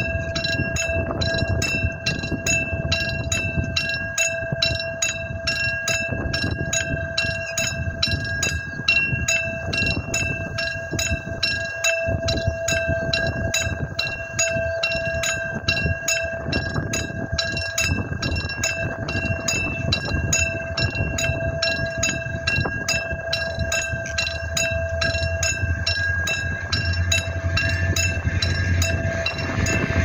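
Level-crossing warning bell ringing in a fast, even run of repeated electronic dings. Near the end the low rumble of an approaching diesel-hauled train builds underneath it.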